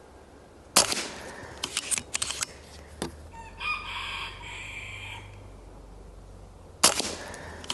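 Two shots from a BRK Ghost .30 PCP air rifle firing slugs, about six seconds apart, each followed by a quick run of clicks as the action is cycled. Between the shots a rooster crows in the background.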